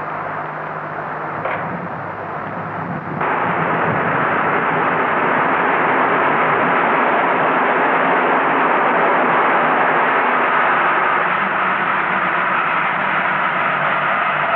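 Passenger train passing close by: a steady rushing noise of wheels running on the rails, which jumps suddenly louder about three seconds in.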